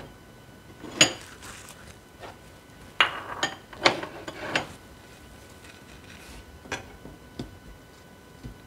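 Ceramic bowls and a plate being picked up and set down on a glass-ceramic hob: a sharp clink about a second in, a quick run of knocks and clinks around three to four and a half seconds, then a few lighter taps.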